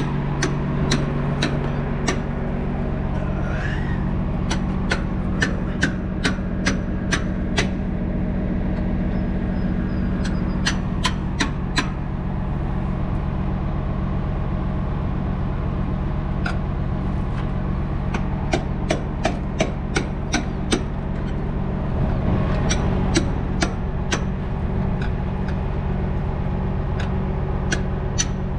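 Heavy tow truck's engine idling steadily, with repeated sharp metallic clicks coming and going throughout, in clusters, from the winch cable and rigging being worked.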